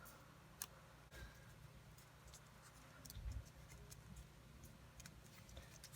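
Faint rustle and a few soft ticks of paper being folded and creased by hand.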